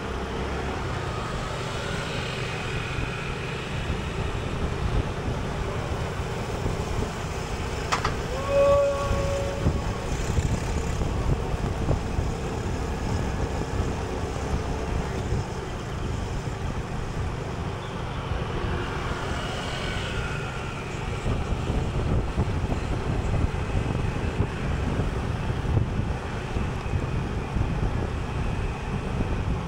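Steady rumble of road traffic, with a short, clear tone just after eight seconds in.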